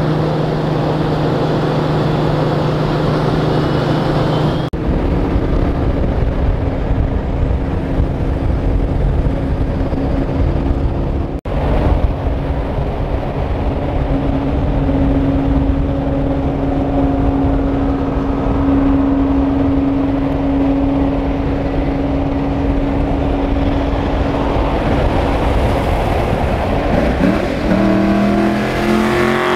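Cars driving at highway speed, heard from inside a moving car: a steady engine drone over road noise. Near the end an engine revs up, rising in pitch.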